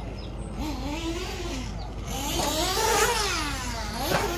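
Small high-revving engine of a 1/8-scale nitro RC buggy (HB Racing D819RS) revving up and down as it is driven around a dirt track, its pitch climbing and dropping with the throttle several times, highest about three seconds in, with a sharp climb just after four seconds.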